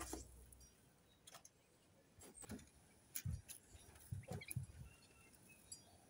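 Coturnix quail dust-bathing in sand in a rubber pan: faint scattered ticks of scratched and flicked sand, with a few soft thumps a little past halfway. Faint bird chirps sound in the background.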